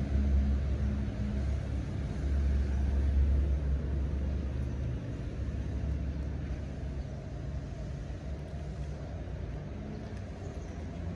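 Audi R8's 4.2-litre V8 engine idling with a steady low rumble, loudest in the first few seconds and then settling a little quieter.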